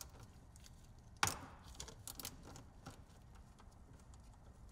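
A ratchet and 9/16-inch socket loosening an ATV engine's oil drain plug: faint scattered clicks and taps, with one sharper clack about a second in.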